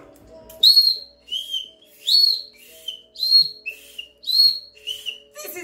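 High-pitched whistle: about eight short notes alternating between a higher and a lower pitch, roughly two notes a second.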